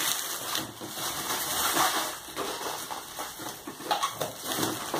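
Clear plastic wrapping crinkling and rustling as it is pulled off the top of a large cardboard parcel by hand.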